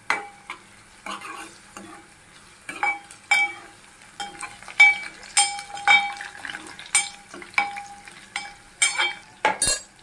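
Metal spatula stirring onions and green chillies frying in oil in an aluminium pot, scraping and knocking against the pot about twice a second, each knock ringing briefly, over a faint sizzle.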